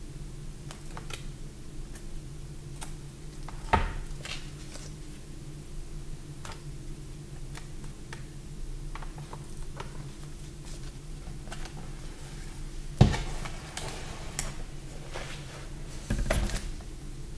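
Sketchbook pages being turned and handled: soft paper rustles and small clicks over a steady low hum. Two sharp knocks, about four seconds in and about thirteen seconds in, and a short rustle near the end.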